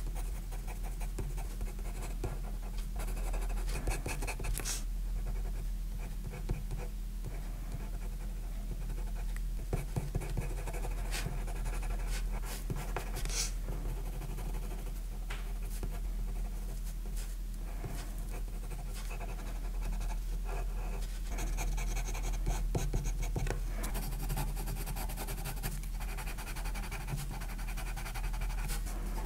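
Watercolour pencil leads, a Staedtler Karat and later a Faber-Castell Art Grip Aquarelle, scratching across watercolour paper in many short shading and hatching strokes, over a steady low hum.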